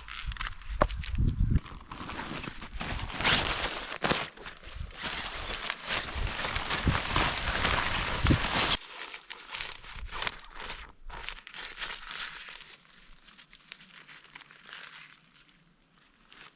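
Crinkling and rustling handling noise that stops abruptly about nine seconds in, followed by softer scattered rustles and light clicks that fade away.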